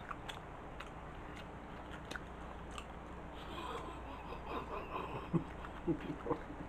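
Faint chewing and mouth sounds of a person eating a sushi roll, with scattered soft clicks. Near the end come a few short, faint hums.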